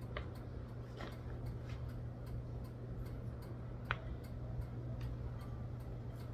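Faint, irregular light clicks over a steady low hum, with one sharper click about four seconds in.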